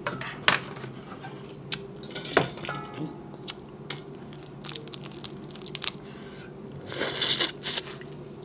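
Boiled crawfish shells being cracked and peeled by hand: a series of sharp cracks and snaps, with a longer, louder crunching burst near the end as one is bitten into. A faint steady low hum runs underneath.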